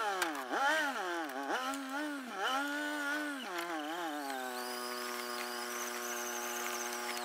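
A motor whining, its pitch swooping up and down several times over the first few seconds, then holding one steady tone.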